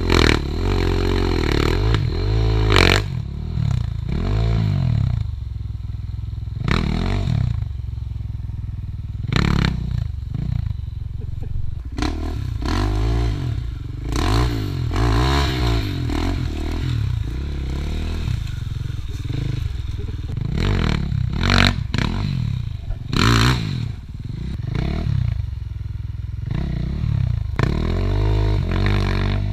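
Enduro dirt bike engines revving in repeated short bursts over a steady idle, each rev rising and falling in pitch, as a bike is forced through thick brush. Scattered sharp clatters and scrapes from the bikes and the brush.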